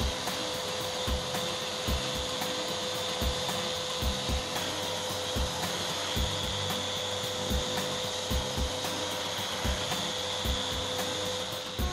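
Electric random-orbit sander running steadily with a constant whine, its abrasive pad rubbing over a hardwood table leg. Soft low thumps recur every second or so.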